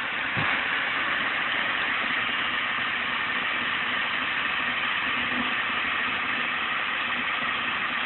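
Excavator diesel engine running steadily at a low, even pace, under a constant hiss.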